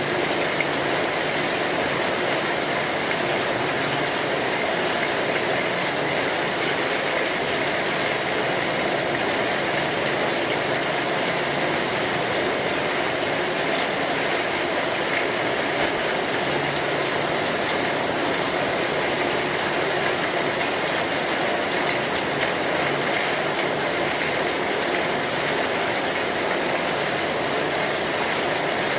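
Steady rain falling, an even hiss of drops that holds unchanged throughout.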